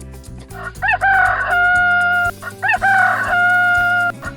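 Rooster crowing twice, cock-a-doodle-doo, each crow rising quickly and then holding a long steady final note, over soft background music.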